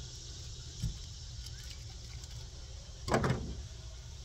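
Handling noises as things are fetched: a short knock about a second in, then a louder thud about three seconds in, over a steady low rumble.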